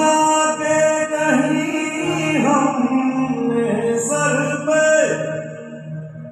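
A song playing: a singing voice over instrumental accompaniment, with a steady low note underneath.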